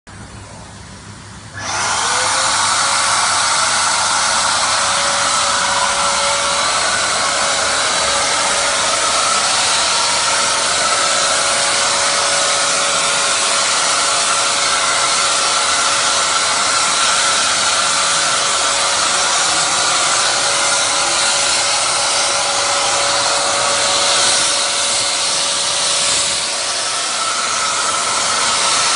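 AIROFOG U260 handheld fogging sprayer switched on about a second and a half in. Its blower motor spins up with a quickly rising whine, then runs steadily and loudly with a strong airy hiss as it blows mist out through the hose and nozzle.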